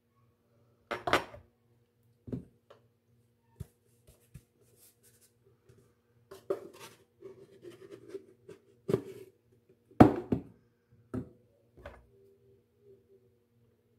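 Scattered knocks and clinks of a measuring cup against a metal flour canister and a ceramic mixing bowl while flour is scooped out, with a stretch of scraping and rustling in the middle. The loudest knock comes about ten seconds in.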